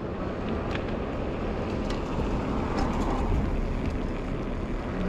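Steady rushing wind on the microphone mixed with the rolling noise of an Ecotric folding e-bike's fat tires on pavement as it rides along, with a few faint ticks.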